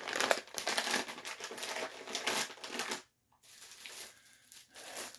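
Plastic bag of shelled walnuts crinkling as it is handled and put aside, for about three seconds; after a brief pause there is softer rustling of plastic packaging.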